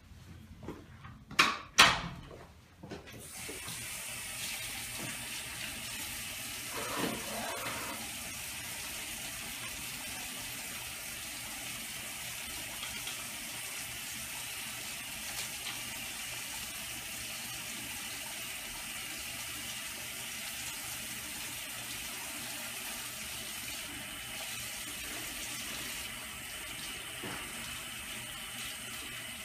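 Two sharp knocks, then about three seconds in a bathroom sink tap is turned on and water runs steadily into the basin while hands are washed under it.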